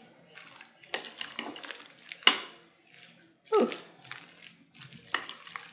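Metal spoon stirring potato salad in a glass mixing bowl: a few short scrapes and clinks of metal against glass, the sharpest a little over two seconds in.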